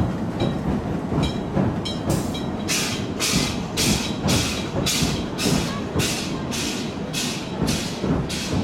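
Sternwheel riverboat's paddle-wheel drive running in a steady rhythm of about two hissing puffs a second, with low thuds under each; the puffs grow much louder about two seconds in.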